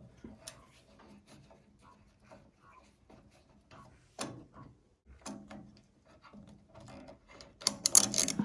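Scattered clicks, taps and small scrapes of hand tools and metal parts being handled while the taillight assembly of a 1931 Ford Model A is taken apart, with a sharper knock about four seconds in and a louder burst of clattering near the end.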